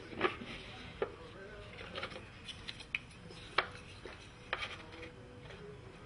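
Short sharp wooden clicks and knocks, roughly one a second, as Spanish cedar dividers and a slotted tray are set by hand into a humidor's interior; the loudest knock comes a little past halfway.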